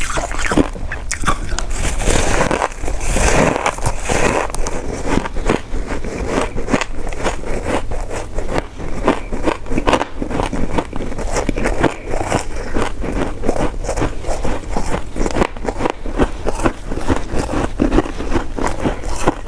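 Close-miked biting and chewing of soft, sticky coconut rice cake: a steady run of many small mouth clicks and smacks.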